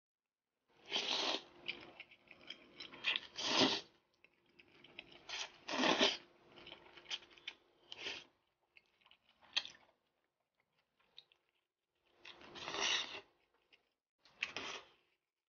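Slurping and chewing of slippery buckwheat liangpi noodles: several loud slurps a few seconds apart, with wet mouth sounds between them.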